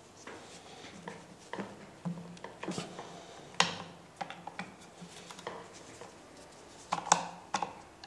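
Irregular metallic clicks and knocks from the hook and shuttle-race parts of an antique sewing machine being handled and fitted by hand, the loudest about three and a half seconds in and about seven seconds in.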